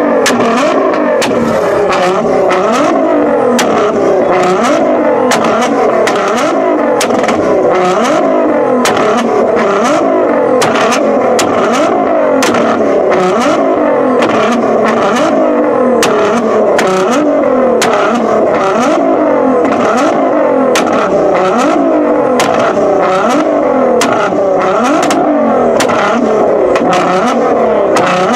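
Car engine revved hard again and again, the pitch climbing and dropping about twice a second, with a steady stream of sharp exhaust pops and crackles throughout.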